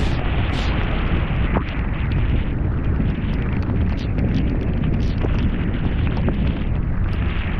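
Heavy rain and wind buffeting the microphone: a steady, loud rush with scattered small ticks.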